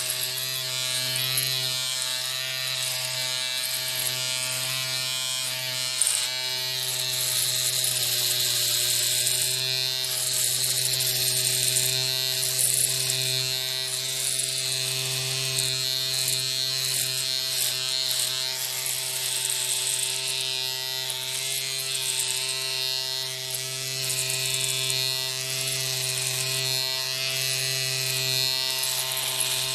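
Electric hair clipper running with a steady buzz, the blade's hiss rising and falling slightly as it works, with a brief click about six seconds in.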